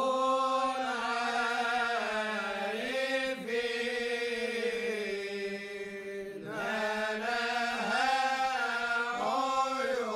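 Egyptian Sufi chant from Cairo: voices chanting a slow, bending melody in long phrases, with short breaks about a third and two thirds of the way through.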